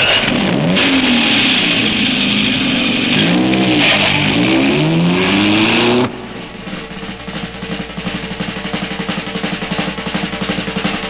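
Drag-racing engine sound effect on the opening of a 1960s dragster instrumental record. The engine revs up and down repeatedly over a loud rushing hiss, then cuts off suddenly about six seconds in, giving way to a quieter, steady sound.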